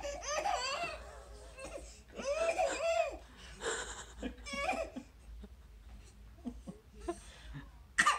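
A seven-month-old baby squealing and babbling excitedly in several short high-pitched bursts, loudest in the first three seconds.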